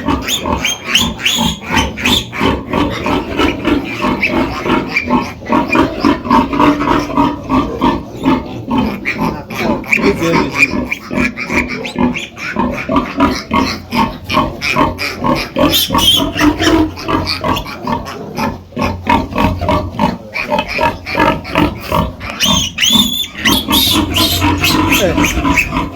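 Many pigs grunting and squealing continuously in a pen, a dense stream of short calls, with louder high-pitched squeals near the end.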